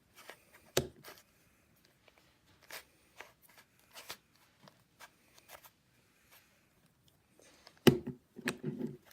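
3x3 Rubik's cube being twisted by hand: scattered quick clicks of the plastic layers turning. A louder knock comes about eight seconds in.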